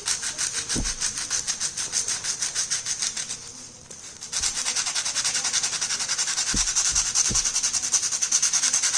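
A disc brake pad rubbed back and forth on sandpaper in quick, even strokes, about four or five a second, with a short pause near the middle. The pad's glazed, shiny surface is being sanded off to give it grip again after oil contamination.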